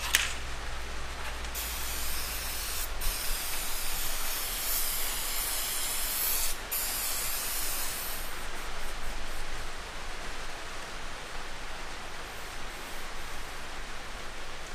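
Aerosol can of contact cleaner spraying in long hissing bursts, with two brief breaks, stopping about eight seconds in. After that comes softer rustling of a rag wiping the mesh screen.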